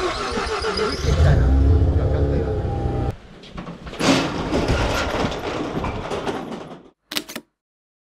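A car engine running for about three seconds, stopping abruptly. About four seconds in, a garage's sliding door is pulled open, and that sound fades out near the end.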